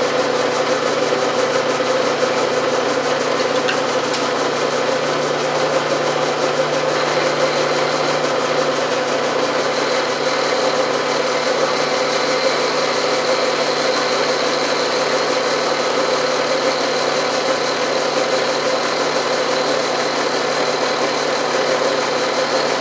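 Milling machine running steadily with an even mechanical hum, its end mill taking a light skim cut of a thousandth or two off a steel part at very slow feed to flatten it.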